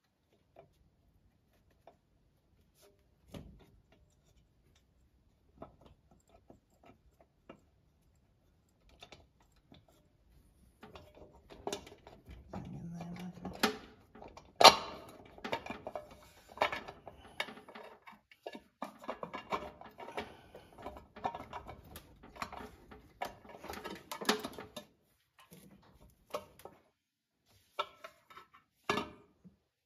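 Metal engine parts and tools being handled on a cylinder head: a few scattered clicks at first, then, about a third of the way in, a busy stretch of clinks and knocks with one sharp loud knock, and a few more clicks near the end.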